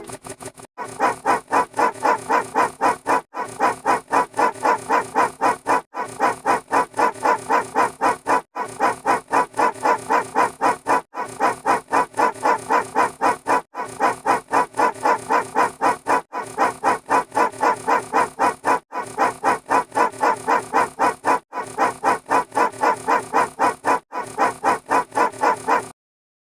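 A looped sound effect: a rapid pulsing pitched sound, about five pulses a second, repeated in near-identical stretches of about two and a half seconds with a brief break between each.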